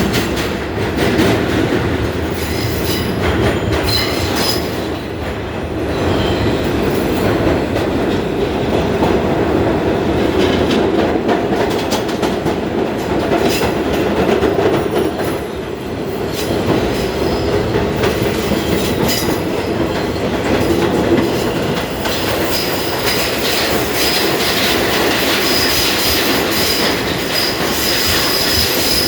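New York City subway F train running at speed through the tunnel, heard from inside the car: a steady rumble with the clicks of wheels over rail joints. About three-quarters of the way through, a high, steady wheel squeal sets in and holds.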